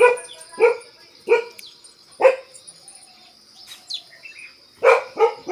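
Himalayan Gaddi (Bhotia) dog barking: four single barks about a second apart, a pause of about two and a half seconds, then two more in quick succession near the end.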